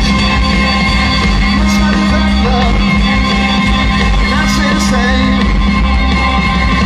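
Live rock band playing loudly, electric guitar among the instruments, with a held low note that ends about five and a half seconds in.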